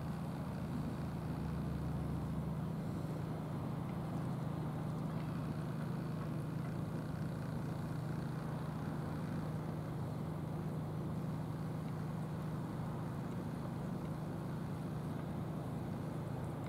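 An engine running steadily with a low, unchanging drone.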